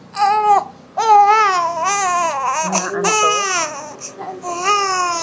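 An infant crying hard in a series of four high-pitched wails, the longest lasting about a second and a half.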